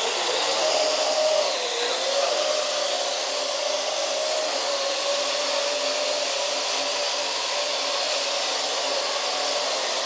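Parrot AR.Drone quadcopter's four electric motors and propellers running steadily as it hovers, a whirring hiss with a whine that wavers slightly in pitch.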